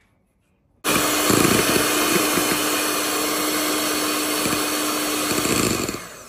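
Electric hand mixer beating whipping cream in a glass bowl. The motor starts suddenly about a second in, runs steadily at high speed with a constant hum, and winds down near the end.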